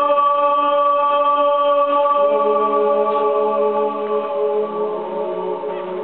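A single voice sings long held notes inside the Pisa Baptistery's dome. A new note comes in about every two seconds while the earlier ones ring on in the long echo, so they stack into a chord that slowly fades.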